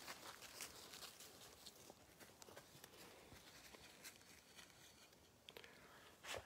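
Faint rustling and crackling of footsteps in leaf litter on the forest floor, with one sharper snap near the end.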